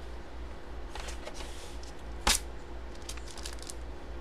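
Hands pulling a plastic graded-comic slab out of its packaging: light rustling and small clicks, with one sharp click about two seconds in, over a low steady hum.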